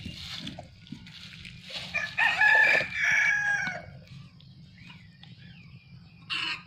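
A rooster crows once, a call of about two seconds near the middle. A brief burst of noise follows near the end.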